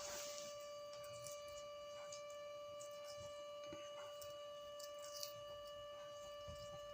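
Steady high-pitched whine underneath faint, scattered small clicks from a grey parrot eating.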